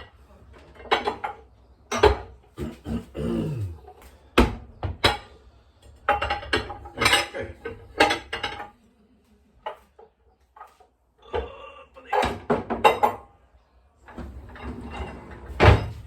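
Kitchen clatter as a bowl is fetched: dishes clinking and knocking, and a cupboard door, in a string of sharp irregular knocks with a quiet spell about two-thirds of the way through.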